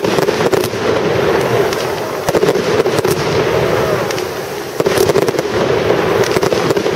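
Fireworks display: aerial shells bursting in rapid succession over a dense, continuous crackle. It eases slightly about four seconds in, then grows louder again.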